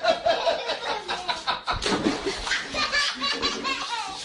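People laughing, in quick repeated bursts of laughter.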